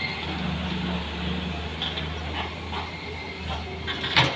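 Daewoo excavator's diesel engine running steadily under load as the arm swings and lowers the bucket, with a few small knocks and one sharp clank near the end as the bucket goes into the trench.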